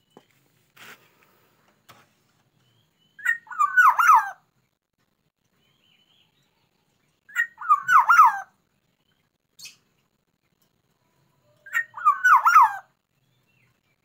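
Caged black-naped oriole (burung podang) singing: three short, fluty whistled phrases, about a second each and four seconds apart, each phrase much the same.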